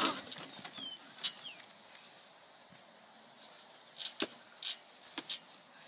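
A few sharp clicks and knocks from a backyard trampoline's springs and mat as someone walks across it with a basketball, with two short high chirps about a second in.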